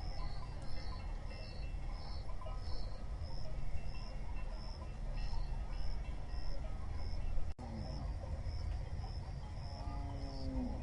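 Crickets chirping in a steady rhythm, about two chirps a second, over a low rumble of the moving herd. There is a brief drop-out about three-quarters of the way through, and a low animal call near the end.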